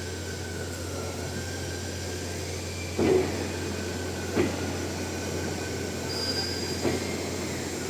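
Metal lathe running steadily, with a constant low hum and a faint whine that slowly wavers in pitch. Three knocks cut through it, about three, four and a half and seven seconds in, the first the loudest.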